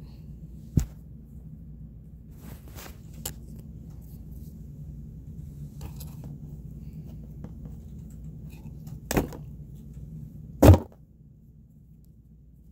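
Handling noise: a few sharp clicks and light knocks over a low steady hum, then two louder knocks near the end, the second a heavy thump, after which the hum drops away.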